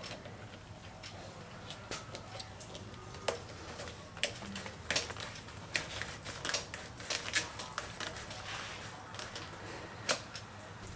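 Irregular light clicks and taps, growing busier partway through, as hands push and twist a rubber Oxford heated grip onto a motorcycle handlebar.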